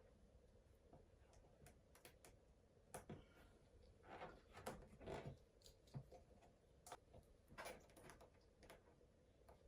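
Faint, scattered clicks and short scraping rustles of 1-inch 3M double-sided tape being handled and pressed onto the mounting points, busier from about three seconds in.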